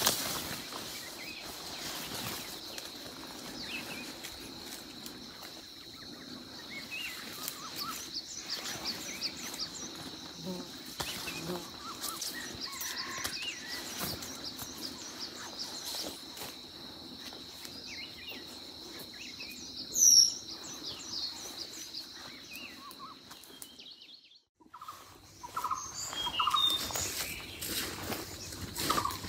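Forest ambience: a steady high-pitched buzz with small pulses over it, scattered bird chirps and the light patter of steps on dry leaf litter, with one brief loud high-pitched call about two-thirds through. The sound drops out briefly near the end, then short calls resume.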